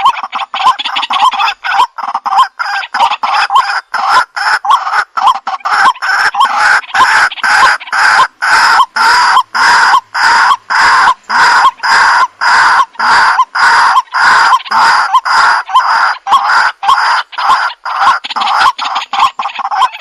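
White-breasted waterhen calling: one loud call note repeated over and over, about twice a second.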